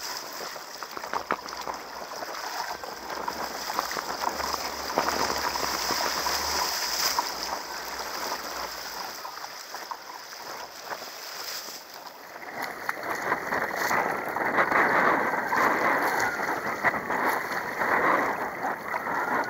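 Choppy sea water sloshing and splashing against a sit-on-top kayak's hull as the paddle blades dip in. About twelve seconds in the sound turns louder and more muffled.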